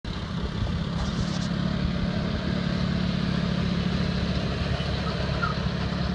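Ford farm tractor's engine running steadily as the tractor drives along.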